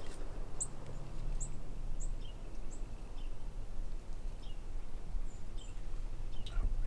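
Small birds chirping: a run of short, high, downward-slurred chip notes, roughly one every half second or so, with a few lower notes between them, over a steady low rumble.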